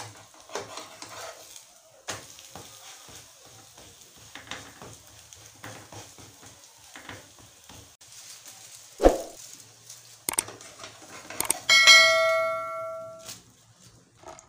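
Akara bean cakes frying in a little oil in a frying pan: a light sizzle with a metal spatula scraping and clicking against the pan and a knock about nine seconds in. About twelve seconds in, a metal clang rings out with several tones and fades over a second or so.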